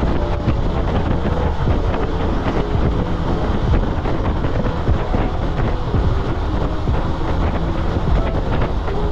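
Wind buffeting the microphone in a steady low rumble, over the road noise of a moving car.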